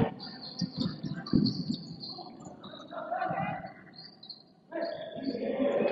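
Basketball game on a gym court: short high squeaks, low thuds of the ball and feet, and scattered voices. The sound drops almost to nothing for a moment about four and a half seconds in.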